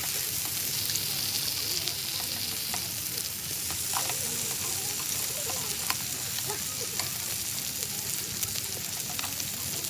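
Food frying in a hot pan: a steady sizzling hiss with scattered crackling pops of spattering fat.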